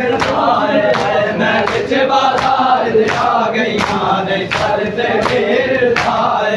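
Crowd of mourners chanting a Punjabi noha together, with sharp unison chest-beating (matam) slaps keeping a steady beat about once every 0.7 seconds.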